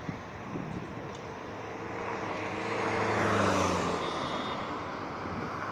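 A motor vehicle passing close by over a steady traffic hum. Its engine note swells to a peak about three seconds in, falls slightly in pitch and fades.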